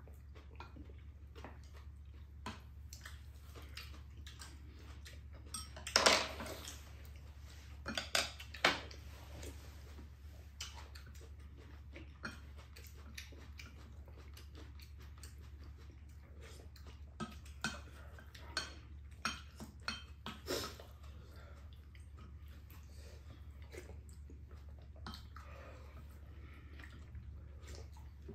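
Metal spoons and chopsticks clinking and scraping against ceramic bowls as two people eat curry, in scattered sharp clinks, the loudest about six and eight seconds in and a quick run of them a little past the middle. A steady low hum runs underneath.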